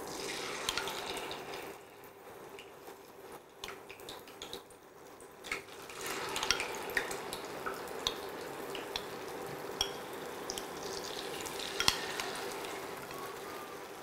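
Batter-coated paneer cubes deep-frying in hot oil in a steel pan: a steady sizzle with scattered pops and crackles, growing louder about six seconds in.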